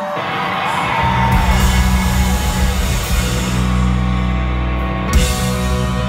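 Live ska-punk band playing loud on a theatre PA. The full band comes in about a second in, heavy on the bass, with a sharp hit about five seconds in.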